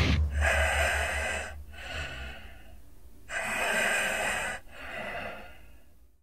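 Heavy, hoarse breathing just after a heavy metal track cuts off: two breaths, each a loud noisy part followed by a softer one, with a low bass note dying away under the first.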